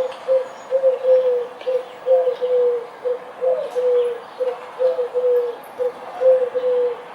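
A bird giving a long series of short, low, coo-like notes, each slightly falling, in runs of two or three. Faint high chirps sound behind it.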